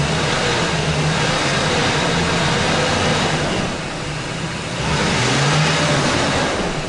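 Ford 4.6 V8 of a 2004 F-150 revved and held up in drive against the brake. It eases about three and a half seconds in and rises again a second later. This is the load under which the rebuilt 4R75W transmission's forward clutch pressure drops toward zero instead of rising, pressure the mechanic says is escaping out of the forward clutch circuit.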